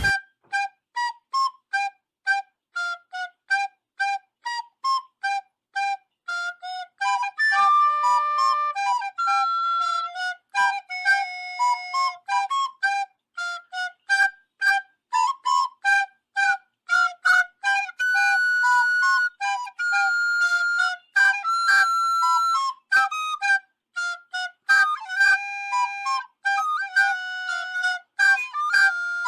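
Music: a solo melody on a flute-like wind instrument, played in many short, separate notes with a few longer held ones, and no bass or accompaniment.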